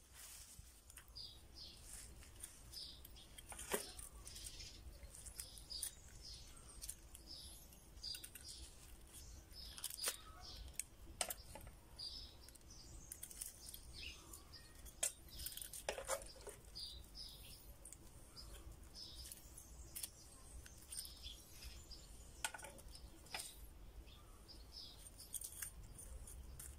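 Faint small birds chirping over and over, with scattered sharp clicks and taps from metal kitchen tongs as grilled chicken thighs are set down on lettuce.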